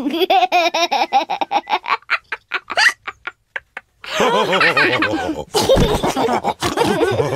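Cartoon voices laughing in rapid pulses. The laughter thins to short separate bursts and a brief pause, then several voices laugh together again.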